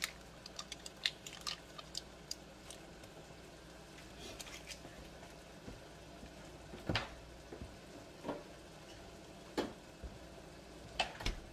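Faint crinkling clicks of a butter stick's paper wrapper being peeled off over a pot of grits. Then a few isolated soft pops come a second or more apart.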